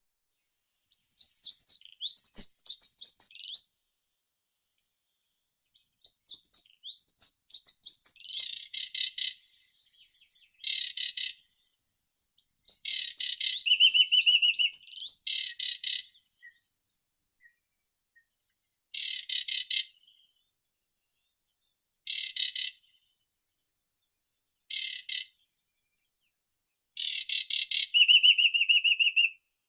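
Songbird singing in short, high-pitched chirping phrases of one to three seconds, with silent pauses between them. Some phrases end in a brief lower trill.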